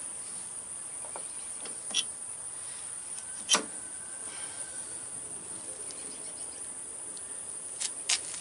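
Metal parts clinking as a spacer and slack adjuster are worked onto a truck brake S-cam shaft: a few sharp clicks, the loudest about three and a half seconds in and two more near the end. Under them runs a steady high-pitched insect drone.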